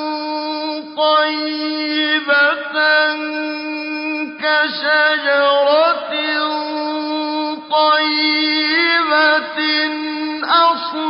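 A man's voice chanting Quran recitation in melodic tajweed style, with long held notes and ornamented wavering turns, broken by short pauses every second or two.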